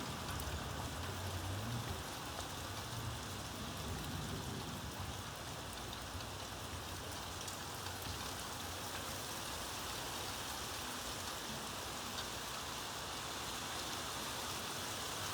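Steady rain falling, an even hiss with no siren tone standing out. A low rumble fades out over the first few seconds.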